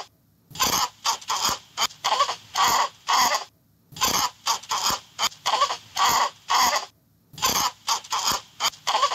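Short, rasping animal calls repeated quickly, about three a second, with two brief pauses between runs.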